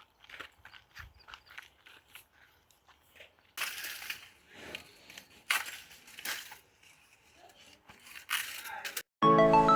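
Dry leaves and stalks crackling and tearing as they are handled, in a run of short rustles that grow louder about three and a half seconds in. Music comes in near the end.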